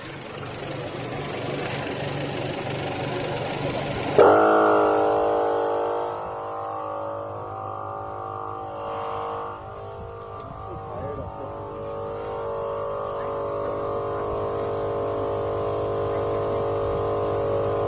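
A motor starts suddenly about four seconds in and runs steadily with an even hum, over a faint hiss before it.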